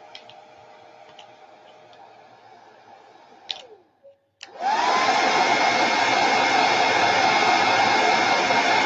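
Handheld hair dryer running quietly on low, then clicked off so its motor winds down. About four and a half seconds in it is clicked back on, the motor whine rising and settling into a much louder steady blowing.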